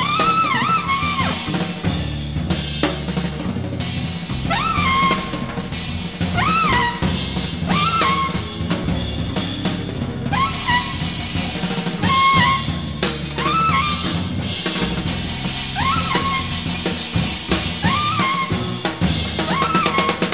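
Jazz trio of trumpet, bass and drums playing improvised music. The trumpet repeats a short figure over and over, each time bending up in pitch into a held note, over sustained bass notes and a busy drum kit with snare, bass drum and rimshots.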